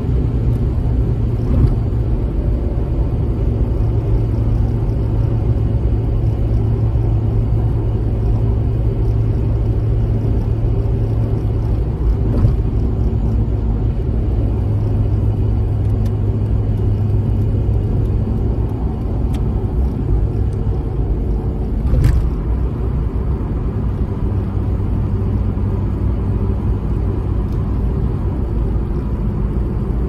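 Mazda RX-8's rotary engine and road noise heard inside the cabin while driving, a steady low drone whose pitch steps a few times as gears change. A brief knock about twenty-two seconds in.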